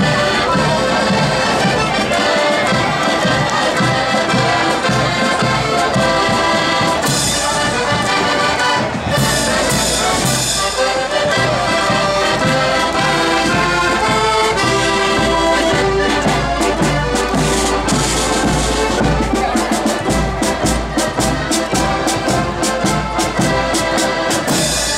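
Marching accordion band playing a march tune together, many accordions sounding the melody over a bass drum beat. Snare drums come through more strongly over the second half.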